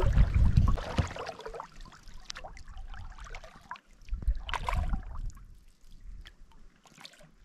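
Kayak paddling: water splashing and dripping off the paddle blade in scattered strokes, with the largest splash about four and a half seconds in. A loud low rumble fills the first second or so, then fades.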